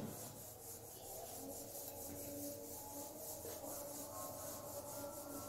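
Whiteboard eraser rubbing across a whiteboard in rapid back-and-forth strokes, a faint, evenly repeating scratchy rubbing.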